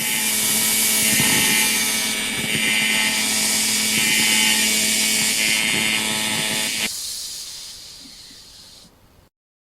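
Hitachi G12SS 580-watt angle grinder running at speed with a steady high whine, switched off about seven seconds in and spinning down to a stop over the next two seconds.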